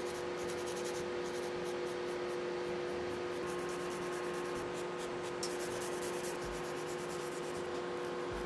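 Hand nail file rasping in quick repeated strokes across a client's fingernails as they are shaped, over the steady hum and hiss of a tabletop nail dust collector's fan.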